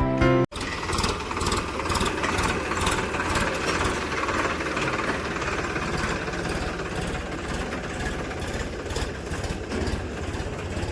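Engine of a paddy harvesting machine running steadily with a busy, fast clatter, after background music cuts off about half a second in.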